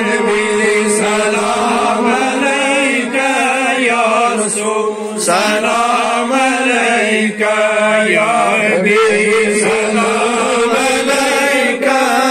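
Group of men chanting a devotional Salaam in unison, one lead voice sung into a handheld microphone, with long wavering held notes over a steady low drone.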